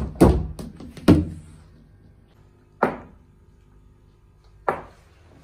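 Cricket ball knocks and thuds in a tiled room as the ball is bowled and played: a run of hard impacts in the first second or so, the loudest just after the start and about a second in, then two single sharp knocks about three and nearly five seconds in.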